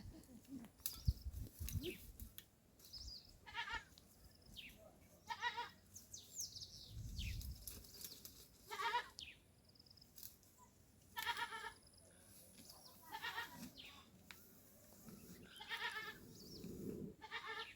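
Goats bleating: a string of short calls, each under half a second long, repeating about every two seconds.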